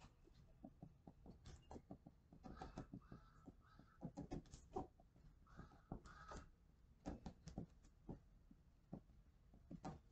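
Faint graphite pencil strokes on drawing paper: short, irregular scratches and taps as the pencil works. About two and a half seconds in come three short faint tones in a row, and two more near six seconds.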